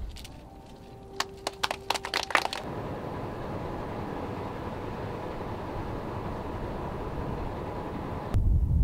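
A quick run of about ten sharp clicks and snaps over a second and a half, then a steady outdoor hiss with a faint hum. Near the end a louder low rumble comes in suddenly.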